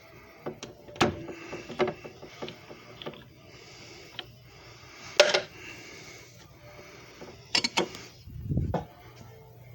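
A series of irregular clicks and knocks, as of a small device and its parts being handled, with a louder knock about five seconds in, two quick clicks near the end and a dull thump just after them.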